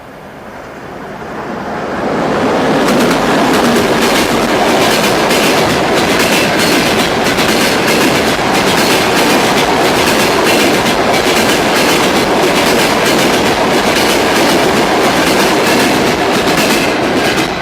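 Passenger train coaches passing at speed. The noise rises over the first two seconds to a loud, steady rush, with rapid wheel clicks over the rail joints, and then cuts off suddenly.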